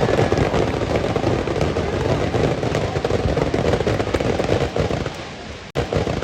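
Fireworks display: a dense, rapid crackling of many overlapping small bursts, fading away near the end.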